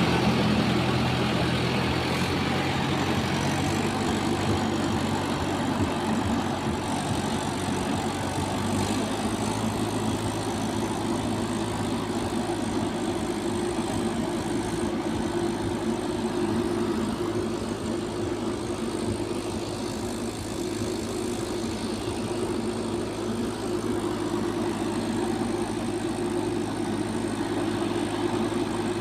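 Heavy diesel engine of earth-moving machinery running steadily at a constant speed.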